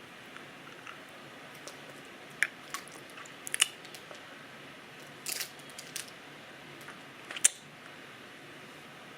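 Close-up mouth sounds with a hard ginger cough drop: a handful of sharp, isolated clicks and smacks, with a short crackly burst about five seconds in.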